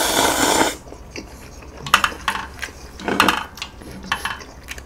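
A loud slurp of instant ramen noodles that ends under a second in, then chewing with a few sharp, wet smacks and clicks at irregular intervals.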